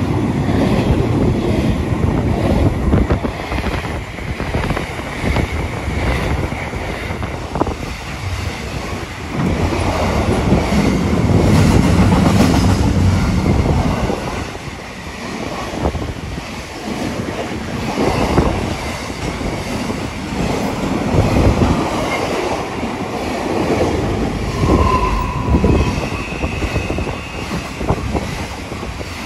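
Container freight train passing close by: the loaded wagons rumble and clatter over the rail joints. Short high wheel squeals come in near the end.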